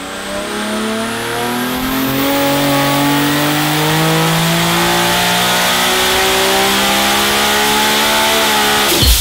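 Turbocharged Nissan RB30 three-litre straight-six running under load on an engine dyno, its revs climbing steadily, with a high whine rising over the first couple of seconds. It cuts off just before the end.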